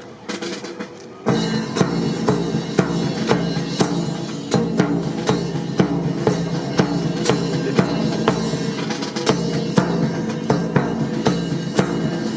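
Music with a steady drum-kit beat, bass drum and snare striking about three times a second, starting suddenly about a second in.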